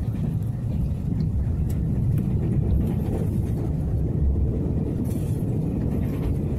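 Running noise inside a Taiwan Railways Tze-Chiang express carriage under way: a steady low rumble of the train rolling along the track.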